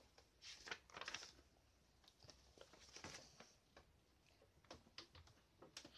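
Faint rustling of paper as a picture book's pages are flipped and handled, in a few short bursts.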